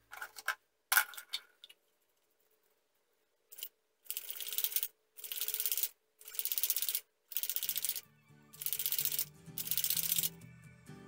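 Plastic bottle of orange paint being shaken hard in repeated bursts of about a second each, a fast rattling swish, after a few clicks of the bottles being handled. Background music comes in for the last few seconds.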